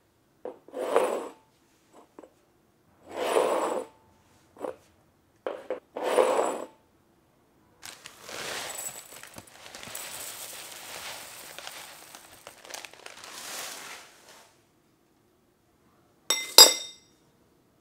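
Fruity Pebbles rice cereal poured from the bag into a ceramic bowl: an even pattering hiss lasting about six seconds. It ends with a metal spoon dropped into the bowl, a sharp ringing clink that is the loudest sound. Earlier, three short handling noises.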